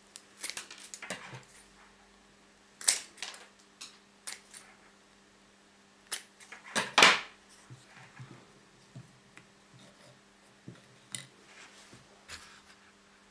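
Scissors cutting an ice-cream stick: a series of sharp snips and blade clicks, the loudest cut about seven seconds in. Lighter clicks of handling follow as the stick is laid down.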